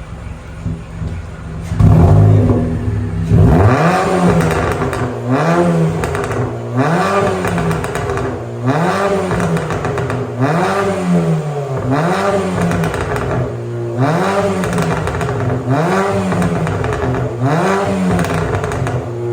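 Mk6 VW Golf's naturally aspirated 1.4 four-cylinder petrol engine, running through an exhaust with the backbox deleted, blipped repeatedly from about two seconds in: about ten quick revs roughly every 1.7 s, each one rising and falling in pitch. Pops and crackles follow each rev on the overrun, from an ECU map set up to make them.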